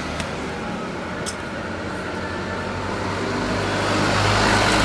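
A motor vehicle's engine and road noise, steady at first and growing louder over the last second or two, with a low hum.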